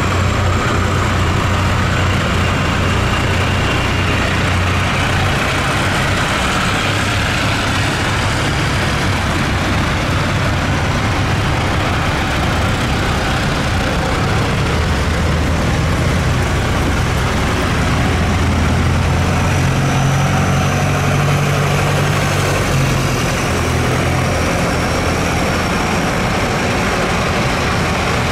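Several vintage diesel farm tractors driving past one after another at slow parade speed, their engines running steadily with a low drone.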